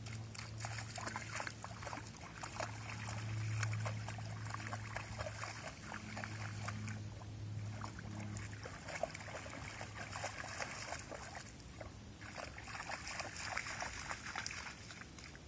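A dog wading through shallow water, with irregular splashing and sloshing in three stretches broken by two brief pauses.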